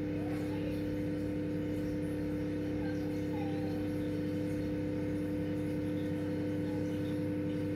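A steady mechanical hum, with two even tones over a low drone, that does not change.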